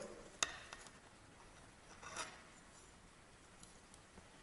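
Handling of an orange plastic rig winder while hooks are fastened to it and the fishing line is pulled taut: one sharp click about half a second in, a few faint ticks, and a brief scrape around two seconds.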